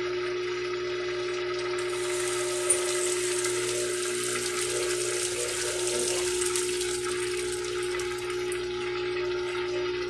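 Brastemp top-loading washing machine running with a steady hum. About two seconds in, a hiss of rushing water joins it as the tub starts to spin, with one sharp click just before three seconds.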